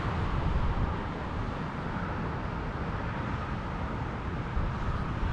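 Wind buffeting the microphone with an uneven low rumble, over a steady hiss of road traffic.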